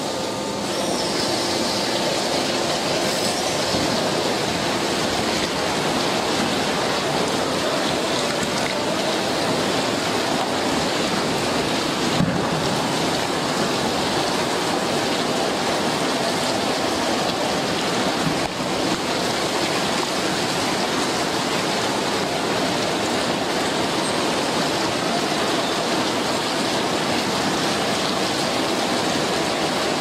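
Steady rushing, hissing noise of a foundry casting floor while molten steel fills a large ring-shaped sand mould for a slag pot casting, with a single brief knock about twelve seconds in.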